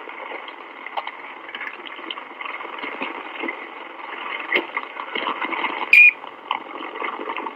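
Dallas Police Department radio channel on an old Dictabelt recording, open with no one talking: steady static hiss with scattered crackles and clicks, thin and telephone-like, and a short high whistle about six seconds in.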